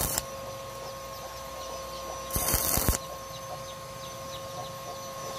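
Electric arc welding: the arc of a stick welding machine crackles in two short bursts of tack welding, the first cutting off just after the start and the second lasting about half a second a little over two seconds in. A steady hum runs underneath.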